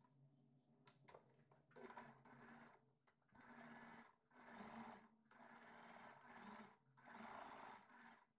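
Sewing machine, faint, stitching a seam in five short runs of about a second each with brief stops between.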